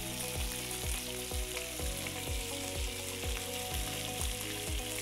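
Beef short ribs searing in a frying pan, sizzling steadily, over background music with a regular beat.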